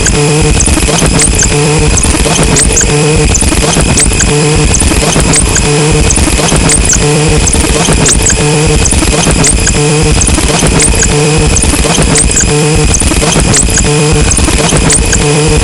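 Harsh noise music: a loud, dense wall of distorted noise with a looped pattern pulsing roughly every half second and short high squeals cutting through.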